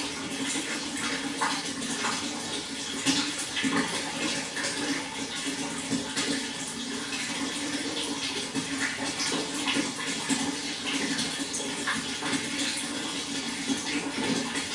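Flowing water: a steady, even rush with many small splashes.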